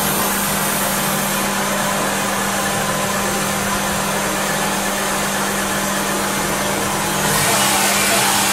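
Subaru Baja's flat-four engine idling with the A/C running while the system takes an R134a charge: a steady hum under an even rushing noise. About seven seconds in, the rush grows louder and hissier.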